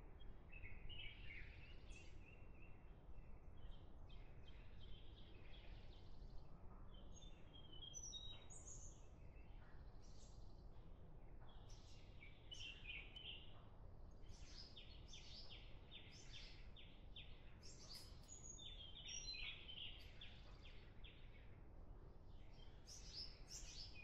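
Faint wild birds chirping and trilling throughout, with a run of rapid repeated notes in the second half, over a low steady outdoor rumble.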